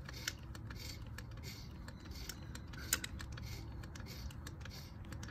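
Hand-lever grease gun being pumped into a trailer wheel hub through the Dexter grease fitting on the spindle end, with clicking strokes at about one and a half a second and one sharper click about three seconds in. The grease is filling the hub around the bearings.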